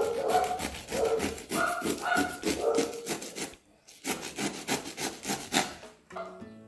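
Serrated knife sawing back and forth through a mille-feuille of puff pastry and Italian meringue: a quick run of sawing strokes that stops briefly about halfway through, then resumes.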